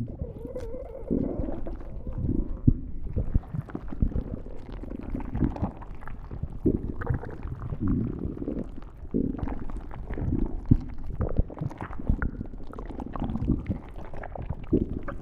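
Stomach growling: a steady run of irregular, low gurgles and rumbles following one another without pause, with occasional louder squelches.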